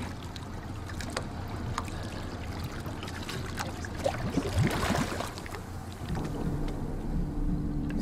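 Water sloshing and splashing around a diver at the surface as he goes under, with scattered small clicks and a brief bubbling gurgle about halfway. Low sustained music tones come in about three quarters of the way through.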